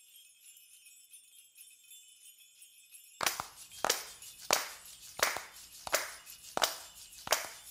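Opening of a song: a faint high jingling shimmer, then about three seconds in a steady beat of sharp percussive hits joins, about three hits every two seconds.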